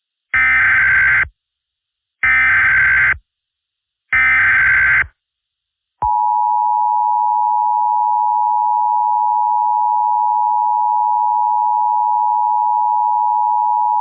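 Emergency Alert System (EAS) audio. Three bursts of SAME header data tones, about a second each and a second apart, are followed about a second later by the steady two-tone attention signal near 1 kHz, held for about eight seconds before it cuts off. This sequence signals the start of an emergency alert broadcast.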